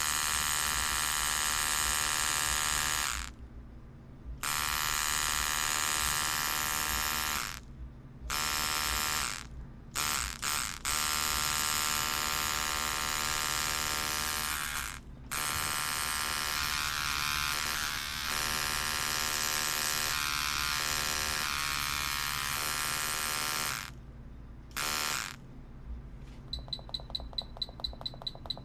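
Tattoo machine buzzing in long runs, switched off and on again several times with short pauses between passes. Near the end it gives way to a quieter run of quick ticks, about six a second.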